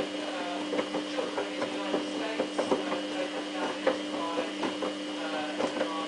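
Samsung WF8804RPA front-loading washing machine tumbling a load during the prewash of its denim 60 °C programme: a steady motor hum with frequent small clicks and knocks from the drum.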